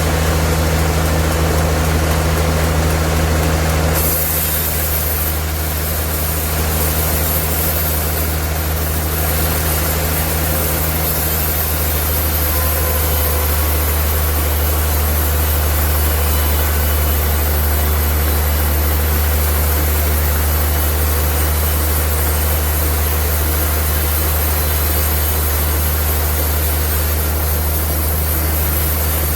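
Sawmill machinery running steadily with a deep, even hum under a dense mechanical noise; the sound shifts about four seconds in.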